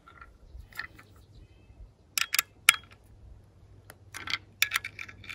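Sharp metallic clicks and taps from a Nilight LED spotlight and its adjustable metal mounting bracket being handled and tightened with an Allen wrench. Three clicks come a couple of seconds in, then a quicker run of clicks near the end.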